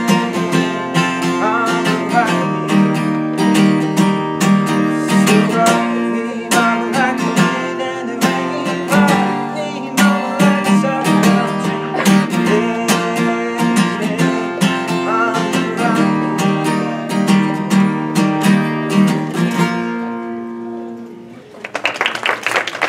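Acoustic guitar strummed in a steady rhythm, with a man singing over it in places. The song ends about twenty seconds in, the last chord ringing out, and clapping starts near the end.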